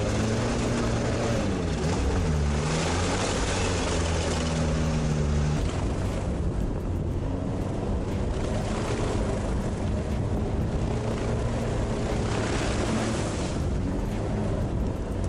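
All-terrain vehicle's engine running under load in a peat bog. Its revs drop about two seconds in and climb back, then ease off again near the end, under a steady hiss.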